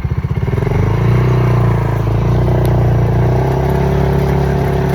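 A motor vehicle engine picks up speed: its low, rapid pulsing smooths into a steady, louder hum within the first second, then holds at that speed.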